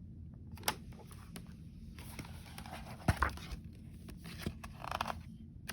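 A book being handled: a few light knocks and short soft rustles of paper.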